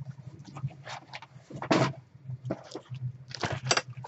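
Rustling and short knocks of objects being handled, over a steady low hum; the loudest bursts come about two seconds in and again near the end.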